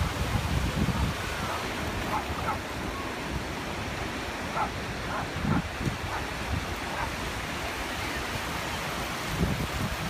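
Ocean surf and wind buffeting the microphone, with several short, faint dog barks in the distance.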